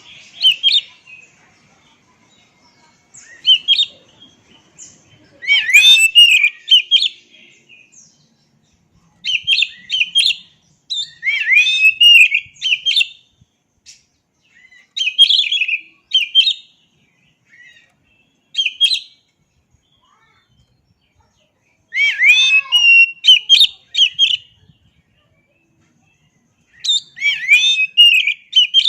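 Oriental magpie-robin (kacer) singing: about nine loud phrases of quick, sliding notes, each lasting one to two seconds, with pauses of one to three seconds between them.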